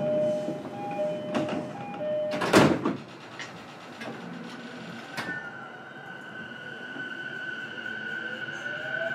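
Door chime of a JR East E233-series train sounding its two alternating tones, then the sliding doors shut with a heavy thud about two and a half seconds in. A few seconds later the traction motors' inverter whine starts, a steady high tone joined by tones rising in pitch as the train pulls away.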